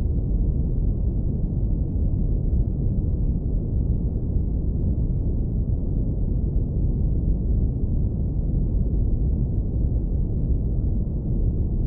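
Steady brown noise, low-pass filtered to a deep, even rumble with almost nothing in the upper range.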